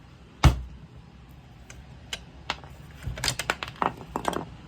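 One sharp knock about half a second in, then a scatter of small clicks and taps as the plastic handle housing of a Makita circular saw is taken apart by hand.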